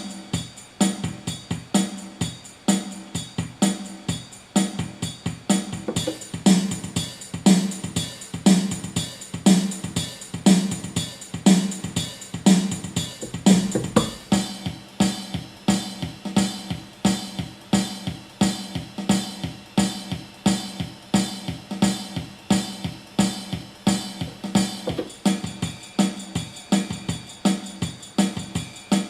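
Yamaha PSR-350 keyboard's built-in rock accompaniment style playing a steady drum-machine rock beat of bass drum and snare. The pattern changes about halfway through.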